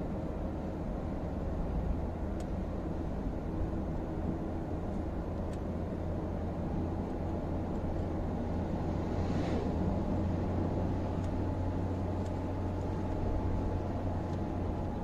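Steady car-cabin hum of engine and tyres while driving on an open road, with a brief rush of noise about nine and a half seconds in and a few faint light ticks.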